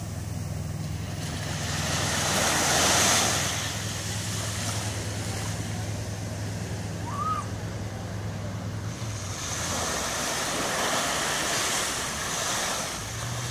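Small waves breaking and washing up on a sandy beach, swelling twice, loudest about three seconds in and again around eleven seconds. Under the surf a steady low motor hum runs until about nine seconds in and comes back near the end.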